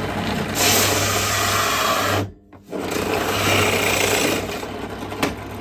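Benchtop drill press running with a 60 mm hole-boring bit cutting a disc out of cork-faced scrap wood: a steady motor hum under a loud, rasping cutting noise. The sound cuts off briefly a little over two seconds in, then the cutting picks up again and fades near the end.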